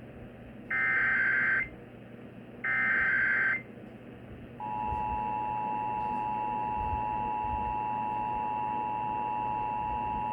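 Emergency Alert System tones on an AM radio broadcast for a Required Monthly Test. First come two one-second bursts of the SAME header's digital data. Then, about four and a half seconds in, the two-tone EAS attention signal starts and holds steady.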